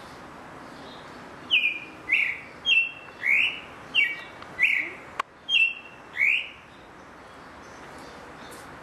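A sabiá thrush singing a phrase of about nine short, clear notes, some sliding down and some sliding up, lasting about five seconds, with one sharp click partway through.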